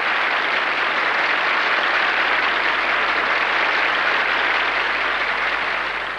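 A large hall audience applauding: dense, steady clapping from many hands, easing off near the end.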